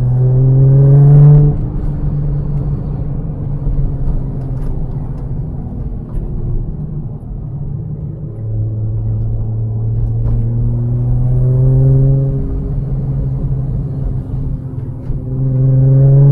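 Nissan Skyline R33 GTR's cammed RB26 twin-turbo straight-six, running through a Tomei titanium exhaust, pulling away on the road. It rises in pitch for about a second and a half and then drops back, runs steadily, rises again over about four seconds and drops, and starts a third rise near the end.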